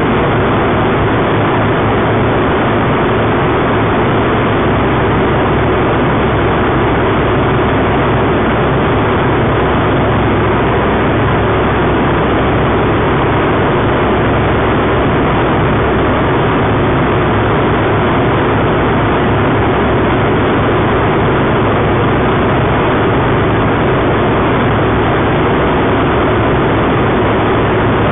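Engine and propeller of a homebuilt taildragger light aircraft running steadily in flight, heard loud from inside the cabin.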